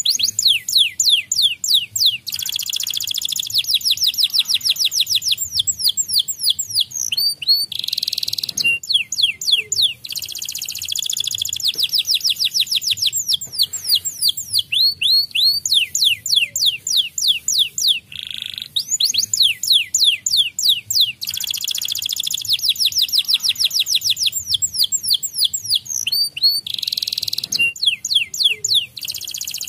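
White domestic canary singing a long, high-pitched song of fast trills, runs of the same sweeping note repeated about nine times a second. Short breaks come every few seconds.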